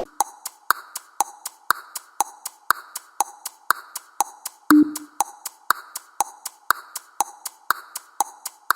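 Countdown timer sound effect: a loud hit at the start, then steady clock-like ticking, a strong tick about twice a second with lighter ticks between, and a short low tone about five seconds in.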